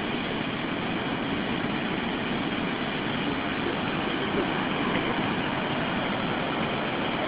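Steady rushing of a river in flood, fast churning water sweeping along debris.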